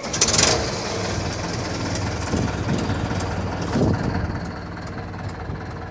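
A tank's Deutz four-cylinder 70 hp engine catches on starting, with a loud burst in the first half-second, then settles into running steadily.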